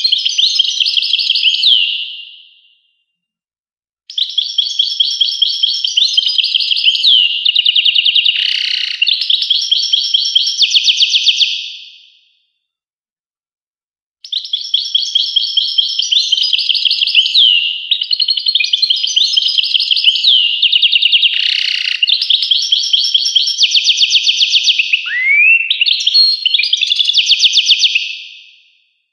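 European goldfinch singing: three long bouts of rapid twittering trills and tinkling notes, broken twice by a second or two of complete silence.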